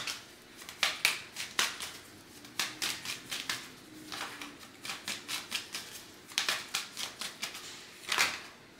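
A deck of tarot cards being shuffled by hand: quick runs of crisp card clicks and flicks, coming in several spells with short pauses between them.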